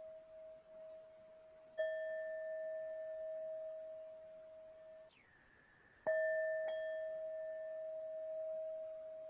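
Tibetan singing bowl struck twice, each time giving one clear ringing tone with fainter overtones that slowly fades. The first ring stops abruptly before the second strike.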